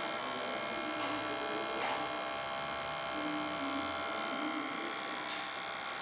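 A steady electrical hum and thin whine, with a few faint clicks.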